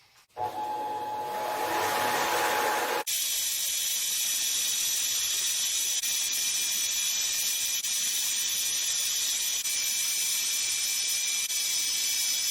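Harbor Freight mini lathe running. The sound comes in about half a second in with a lower steady tone, then about three seconds in changes abruptly to a steady high-pitched motor whine.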